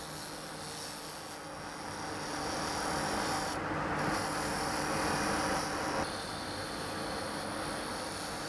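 A roughing gouge cutting a spinning wooden spindle blank on a Union Student wood lathe: a steady rasping scrape as shavings are peeled off, a little louder for a few seconds in the middle.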